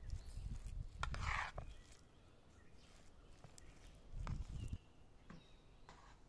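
A spoon folding thick, mayonnaise-dressed Olivier salad in a large metal bowl: wet squelching and soft thuds with a few light scrapes and taps. It is busiest in the first two seconds, goes quieter, then comes back briefly a little past four seconds in.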